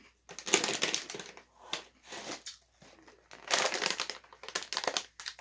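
Crinkling and crumpling of a snack wrapper handled in the hands, in two main bouts of about a second each: one just after the start and another about three and a half seconds in.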